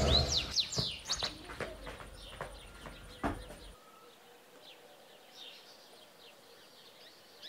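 Small birds chirping: many short, high, downward chirps, busiest in the first two seconds and fainter after. A single thump comes about three seconds in.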